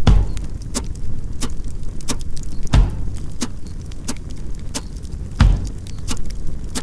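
Campfire crackling, with sharp irregular pops and snaps over a steady low rumble, and a few heavier low thumps.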